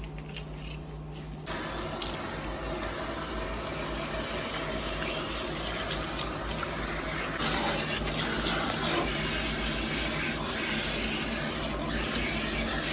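Water running from a sink tap or sprayer, rinsing out hair colour at a wash basin. It starts about a second and a half in, gets louder for a moment around the middle, then stops suddenly.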